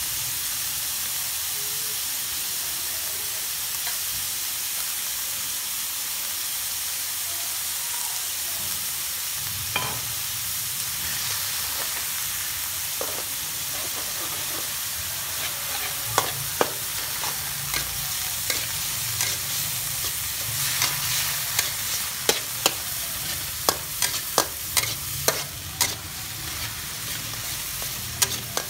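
Pork with ginger sizzling in a steel wok with a steady hiss while a metal spatula stirs it. From about halfway in, the spatula clanks and scrapes against the wok in quick, irregular strikes.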